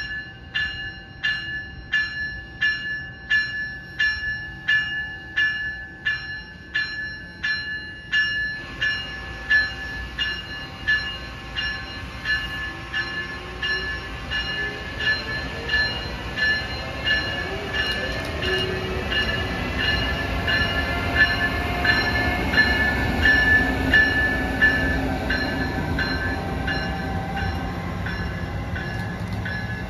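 Amtrak ACS-64 electric locomotive's bell ringing steadily, just under two strokes a second, as the train comes in. Rumble and wheel-on-rail noise rise under the bell and are loudest about two-thirds of the way through, as the locomotive and its passenger cars pass close by.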